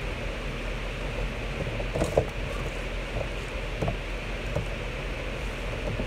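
Close-up eating sounds of fried chicken being chewed: a few short crunches and clicks, the loudest about two seconds in. Under them runs a steady low hum.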